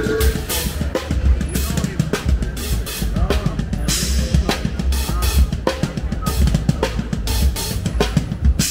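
A drum kit played in a steady beat, with bass-drum and snare hits.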